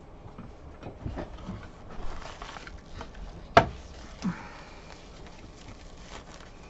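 Crinkling and rustling of a silver foil pouch being unwrapped by hand, with scattered small clicks and one sharp click about three and a half seconds in.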